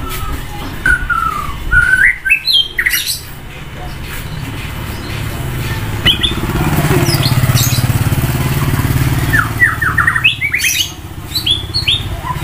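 White-rumped shama singing in loud phrases of gliding whistles and rapid chattering notes, in bursts at the start, in the middle and near the end. A vehicle engine passes beneath, swelling and fading in the middle.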